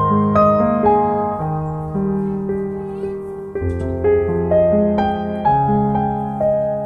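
Slow, gentle piano music: single notes and chords struck about every half second, each fading away before the next.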